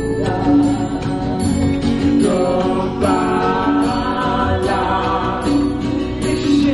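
Kirtan: voices chanting a devotional mantra together, sung call-and-response, over tabla, bass and a steady beat of small percussion strikes.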